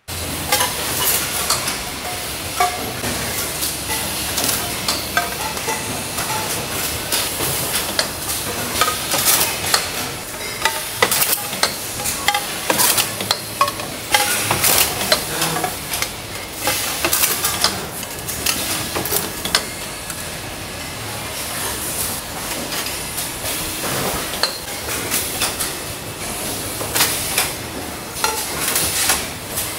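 Factory floor noise in a stainless steel bottle plant: a steady hiss of running machinery with frequent sharp metallic clicks and clanks.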